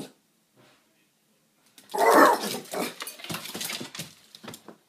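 A dog barks loudly once about two seconds in, followed by a quick run of sharp clicks and knocks.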